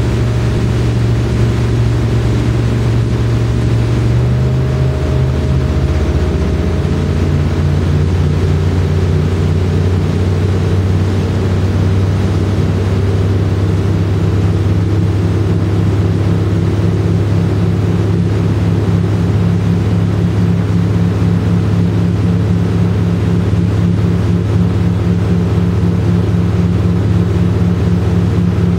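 Motorboat engine running steadily at speed over a rushing of water and hull noise. Its low hum steps up slightly in pitch about five seconds in, then holds.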